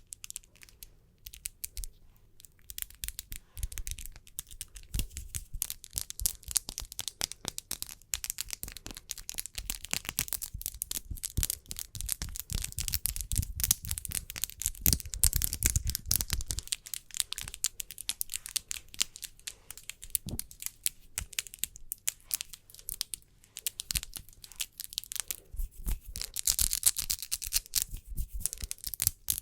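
Hands rubbing together and fingernails tapping close to the microphone: a dense, crackly stream of quick clicks and friction, with a heavier, fuller stretch around the middle.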